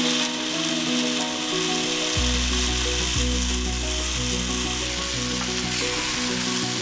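Chicken in spinach-paste masala sizzling in a pan as it is sautéed, over background music whose bass line comes in about two seconds in.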